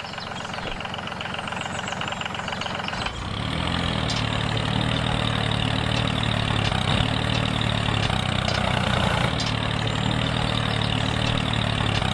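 Mini tractor model's motor running steadily with a low hum, getting louder and heavier about three seconds in.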